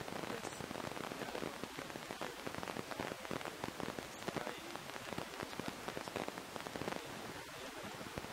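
Dense, steady crackling noise, like many small ticks close together, with a man's voice faint underneath it.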